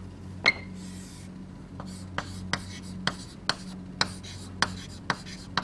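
Writing strokes on a board or page while marking up a graph: a series of short, sharp ticks, about two a second, over a steady low hum.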